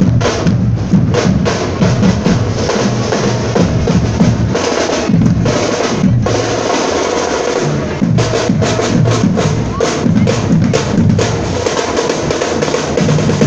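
Marching band drum section playing a street parade cadence: bass drums booming under rapid snare drum strokes, in a steady rhythm.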